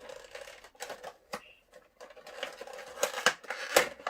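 Packaging being handled and opened by hand: rustling with a run of sharp clicks and snaps, loudest near the end.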